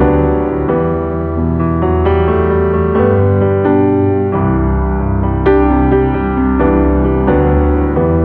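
Background music: a gentle piano piece, with sustained chords and a bass line under it.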